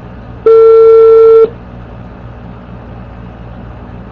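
Telephone ringback tone: one steady beep lasting about a second while the call rings at the other end, waiting to be answered, over a steady low hum of line noise.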